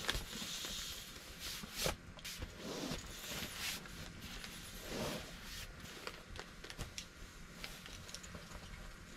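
Kitchen tongs clicking and scraping as bacon strips are laid into a small pan on a Jetboil canister gas stove, over a faint steady hiss.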